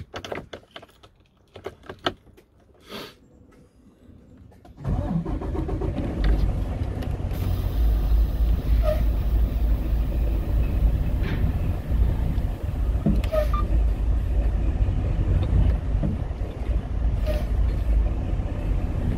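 A few light clicks in the cab, then about five seconds in the semi-truck's diesel engine comes in with a steady, deep rumble under load. The truck is being rocked forward and back so the trailer's tandem slider pins seat fully in their holes.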